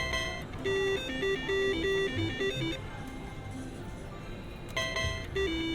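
Slot machine's electronic jingle: a quick stepping melody of beeps and chimes, broken by a sharp clack at the start and again about five seconds in. The beeps drop out for about two seconds in the middle, leaving a low background rumble.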